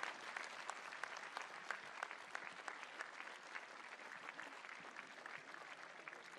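Audience applauding: many hands clapping together, fading a little toward the end.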